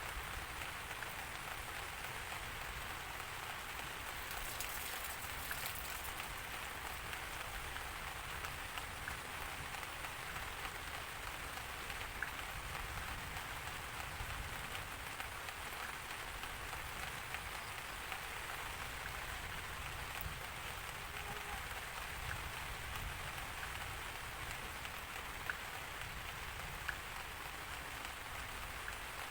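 Steady rain falling and pattering on a surface, with scattered small drop clicks.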